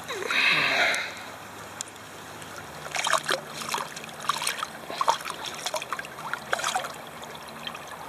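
A hooked smallmouth bass splashing at the water's surface as it is drawn to hand and lipped, in a run of short, irregular splashes.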